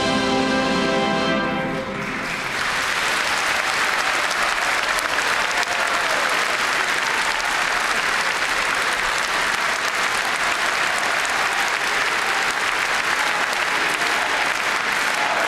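Orchestral music, with the audience singing along, ends about two seconds in, and a large audience breaks into steady applause that continues.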